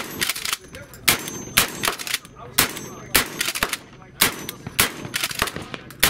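12-gauge DP-12 double-barrel pump shotgun firing in rapid succession: about a dozen sharp shots roughly half a second apart, each with a short ringing tail.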